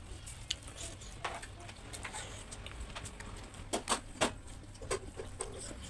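Close-up mouth sounds of a person eating rice by hand: wet chewing and lip smacks, with a few sharper smacks close together about four seconds in.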